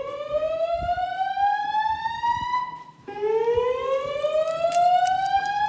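System Sensor SpectrAlert Classic speaker strobes sounding the slow whoop evacuation tone, a loud tone that climbs steadily in pitch. It cuts off about three seconds in and starts again from the bottom for a second rising sweep.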